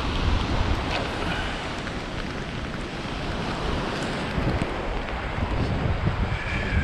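Surf washing up onto a sandy beach, with wind buffeting the microphone in a steady low rumble.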